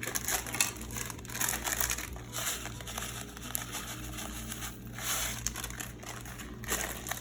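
Irregular crinkling and rustling, with several louder bursts.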